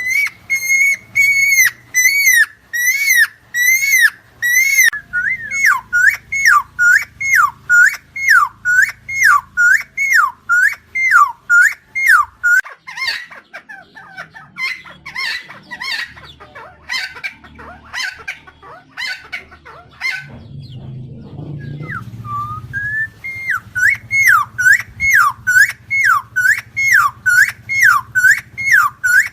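Helmeted friarbird calling: a fast, steady series of loud whistled notes, each dipping and recovering in pitch, about two to three a second. The series breaks for a couple of seconds about two-thirds through, then starts again at the same pace.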